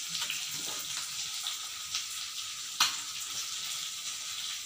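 Masala-coated fish pieces sizzling steadily in hot oil in a pan, nearly done frying. A single sharp click comes a little past the middle, with a few fainter ticks around it.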